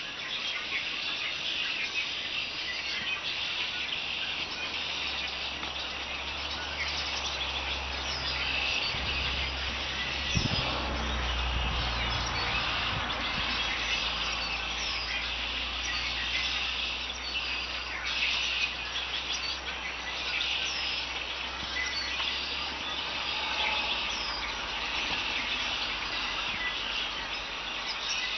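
A flock of blackbirds calling together in a continuous, dense chatter of many overlapping short calls and chirps. A low rumble rises underneath through the middle and fades again later.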